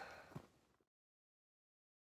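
A few faint footsteps on the trail fading out in the first second, then the sound cuts off to dead silence.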